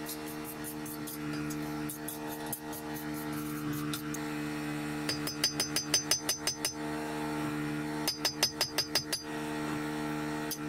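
A hammer strikes a chopper blade made from an old file, held on a steel anvil. The strikes come in quick runs of blows, about six a second, each with a high metallic ring. Lighter taps in the first few seconds are followed by a run of about ten blows about five seconds in and another of about eight about eight seconds in.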